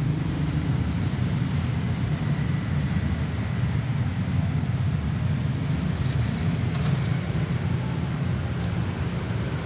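Steady low rumble of background noise, even in level throughout, with no distinct meows.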